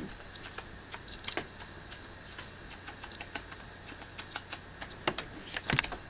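Scattered light clicks and taps, several a second at an uneven pace, with a sharper knock near the end.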